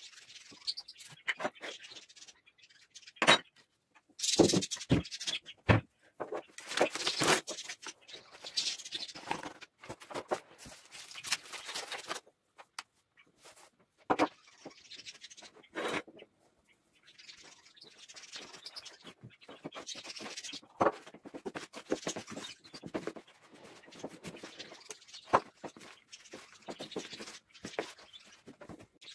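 Kitchen handling noise while mixing dough by hand: sharp knocks of a spoon, glasses and a plastic bowl set down on the table, several of them a few seconds in, and stretches of rustling and scraping as flour is added from a bag and stirred with a fork in the plastic bowl.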